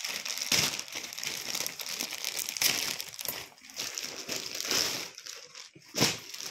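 Plastic packaging bag crinkling and rustling as it is handled and opened and a backpack is pulled out, with louder crackles now and then, the sharpest about six seconds in.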